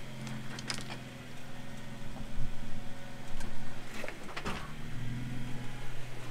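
Jeep Wrangler engine running at a slow, steady crawl as it climbs over boulders, with a few sharp clicks and knocks along the way; the engine note steps up slightly about five seconds in.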